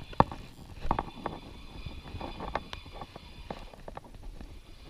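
Irregular clicks and knocks from a spinning rod and reel being handled and wound while playing a hooked fish.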